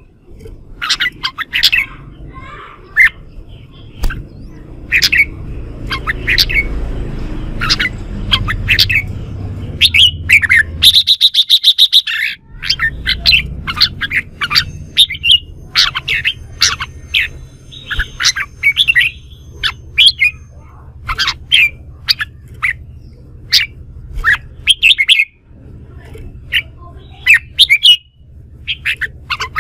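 Red-whiskered bulbul singing and calling in short, rapid phrases, with a fast chattering rattle about eleven seconds in.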